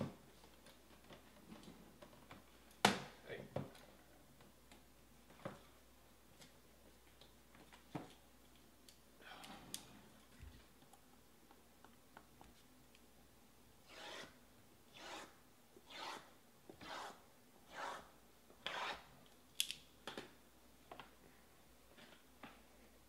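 Knife or box cutter scraping along the plastic wrap on stacked cardboard trading-card boxes: a run of about seven short scraping strokes, roughly one a second, in the second half, after a few light knocks of the boxes being handled early on.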